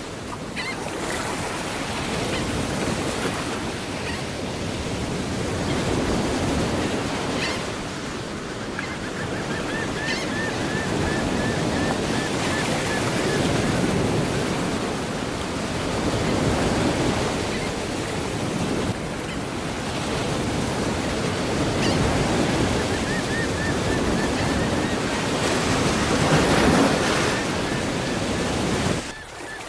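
Added sound effect of sea waves breaking and washing on a shore, swelling and easing every few seconds, with a faint high wavering tone twice, about nine seconds in and again near the end.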